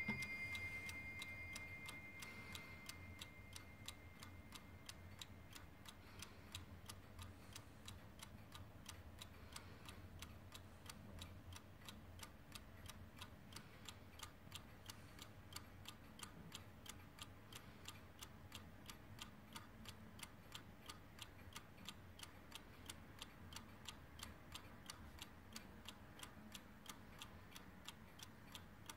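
Warmink 8-day bracket clock movement ticking steadily and faintly. The ringing of its brass bell, struck just before, fades out over the first few seconds.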